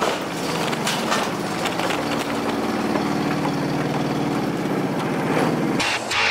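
Kawasaki ATV engine running at low, steady revs as the quad is driven up onto a wooden trailer, with a few light knocks. The engine sound cuts off about six seconds in.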